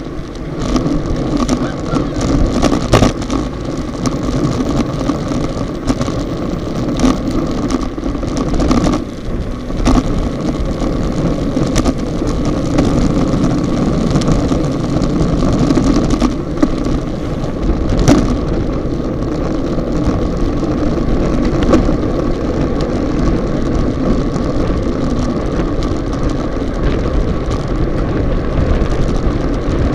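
Wind rushing over the microphone of a bike-mounted action camera at racing speed, with the hum of road-bike tyres on asphalt underneath. Sharp knocks and clicks from the loosely stabilised camera mount jolting over the road are scattered throughout.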